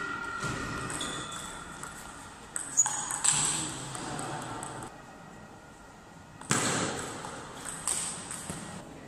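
Table tennis rally: the ball clicking off the players' bats and the table in quick exchanges, echoing in a large hall, with louder, sharper hits about a third of the way in and again about three-quarters of the way through.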